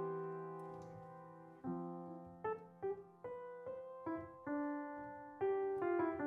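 Upright piano played softly with no singing. A held chord fades away, then about one and a half seconds in a slow broken-chord figure begins, single notes struck about two a second.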